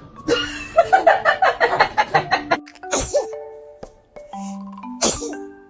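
A small child's sneeze near the end, over light background music with chiming notes.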